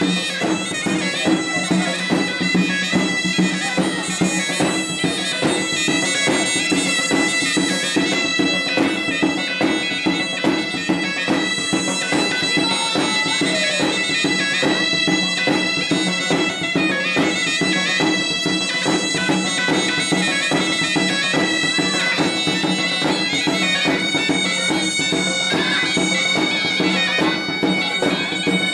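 Music on a shrill, bagpipe-like reed wind instrument over a steady low drone, loud and continuous, with a dense fast pulse.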